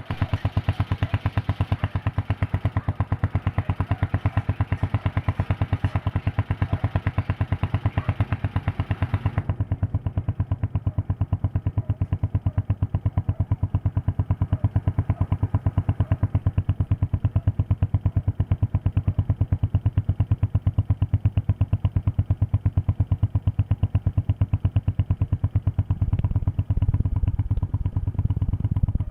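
Honda TMX 125 Alpha's single-cylinder four-stroke engine idling steadily, its exhaust giving an even, regular beat. Near the end the low rumble gets louder.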